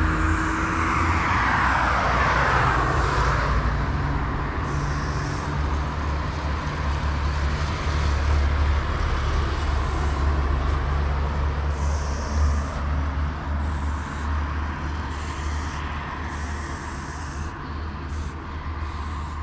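Aerosol spray-paint can hissing in a series of short bursts as a black outline is sprayed onto a wall, over a steady rumble of road traffic. A vehicle passes in the first few seconds, its sound falling in pitch.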